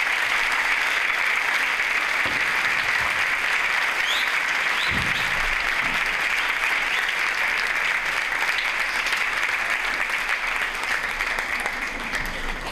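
Audience applauding in a hall, a steady clapping that eases off slightly near the end.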